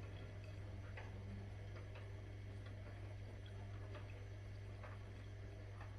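Zanussi IZ 16 S washing machine in its rinse cycle: a steady low hum with faint, evenly spaced ticks a little more than once a second.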